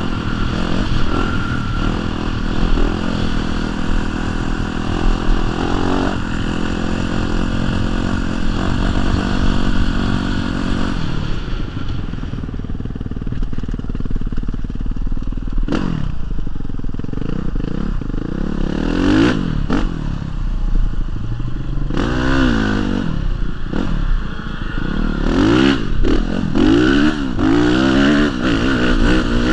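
Honda CRF450 dirt bike's single-cylinder four-stroke engine running under throttle while being ridden over sand. It holds a steady pitch for the first ten seconds or so, then revs up and down repeatedly through the second half.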